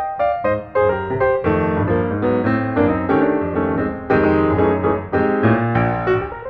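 Background music: a piano or keyboard piece playing a run of notes over a steady bass line.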